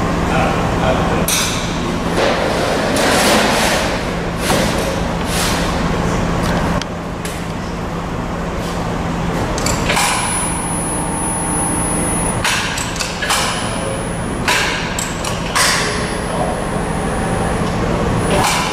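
CIDAN Futura Plus 30 sheet-metal folding machine at work: a steady machine hum with repeated clanks and thuds of metal as the sheet is clamped and folded.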